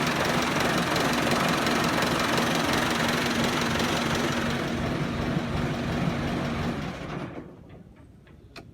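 Diesel tractor engine idling steadily, then stopping about seven seconds in.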